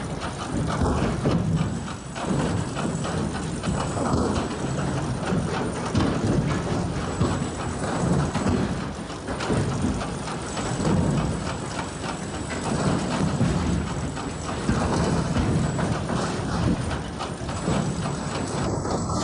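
Firewood processing machine running, with split wood knocking and clattering in repeated surges about every two seconds.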